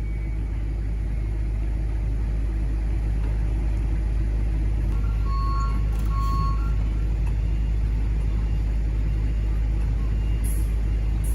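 Heavy diesel truck engine running steadily with a deep rumble, with two short beeps about five and six and a half seconds in.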